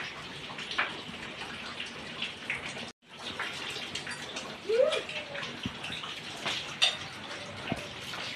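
Steady background hiss during a meal, with scattered light clicks of spoons and forks on plates and a short vocal sound about five seconds in.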